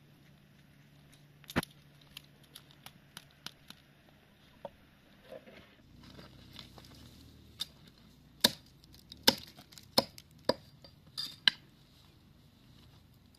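Sharp chops of a blade cutting dried broom-plant stems against a wooden block, with dry rustling and small ticks of the stalks between strokes. One chop comes about a second and a half in, and a quick run of about six loud chops comes from about eight to eleven and a half seconds in.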